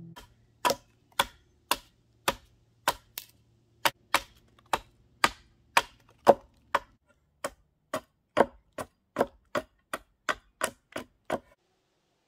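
Hatchet chopping into the end of a green, peeled wooden pole, about two dozen crisp strikes at roughly two a second that come slightly faster toward the end and then stop.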